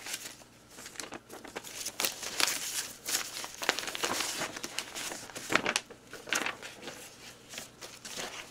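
Sheets of paper rustling and crinkling irregularly as letters are handled and leafed through, busiest a few seconds in.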